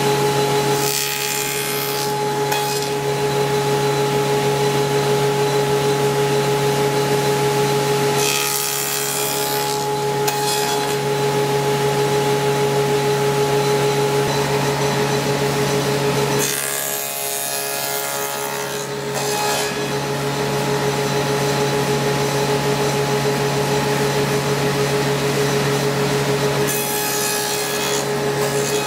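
Table saw with a dado stack running steadily, with four cutting passes as the workpiece is pushed through on a miter gauge, each a second or two of cutting noise. The passes nibble away the waste for a mitered half-lap joint.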